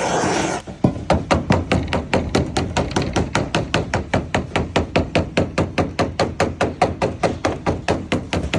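Rapid, even tapping of a lead-bossing tool on code 8 sheet lead, about five blows a second, working the lead up into a pig's-ear corner. A gas torch's steady roar cuts off about half a second in, just before the tapping starts.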